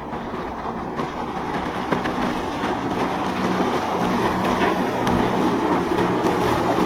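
Boat engines running over the rush of water, growing steadily louder as a boat approaches.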